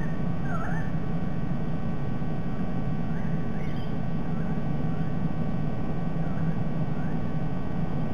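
Wild birds calling around the treetop nest: short swooping whistled calls, clearest in the first second, then fainter ones scattered through. All of it sits over a steady low rumble of background noise.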